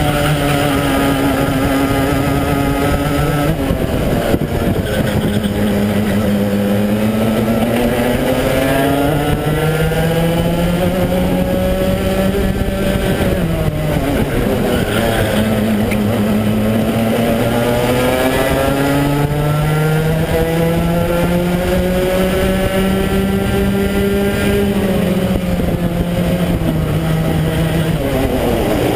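Rotax two-stroke racing kart engine at full race pace, its pitch dropping as it slows for corners about four seconds in, about halfway through and near the end, then climbing steadily through the long stretches between.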